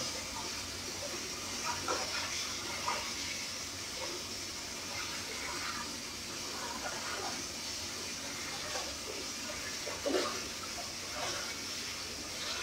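Steady rushing, water-like noise with a few faint knocks and taps about two, three and ten seconds in.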